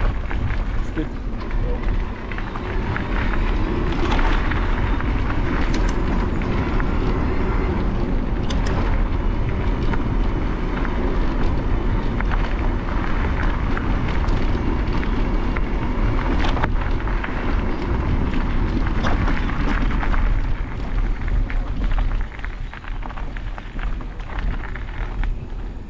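Wind buffeting the microphone of a camera riding on a moving bicycle, with tyres crackling over a gravel track. About three-quarters of the way through the noise gets quieter as the ride moves onto smooth asphalt.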